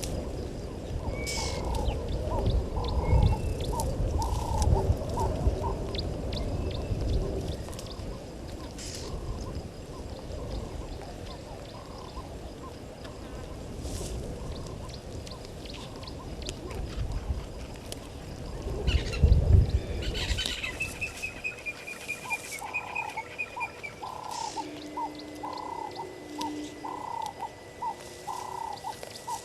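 Wild animal calls at a waterhole: a steady run of short repeated calls at about two a second, with a brief higher bird trill about two-thirds of the way in, followed by a thin held whistle. A low rumble sits under the first two-thirds and then drops away.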